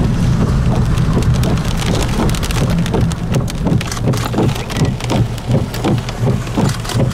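Loud, steady storm noise: wind rumbling across the microphone, with a dense crackle of taps like rain hitting the vehicle or camera.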